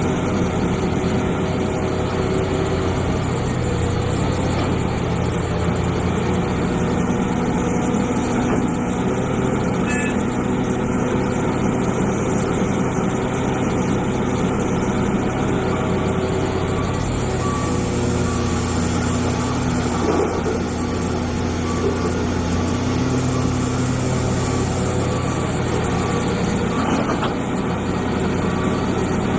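Hitachi EX450 hydraulic excavator's diesel engine running steadily while working, its pitch shifting slightly in the second half. A faint beep repeats about once a second in the later part.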